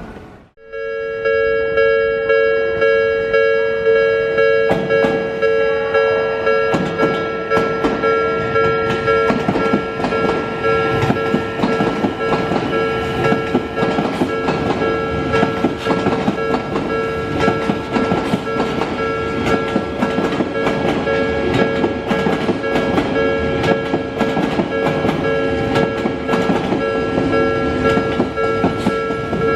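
Railway level crossing alarm ringing in a steady repeating electronic clang. An Odakyu 3000-series ten-car train runs through, its wheels clicking over the rail joints, growing louder and denser from about seven seconds in.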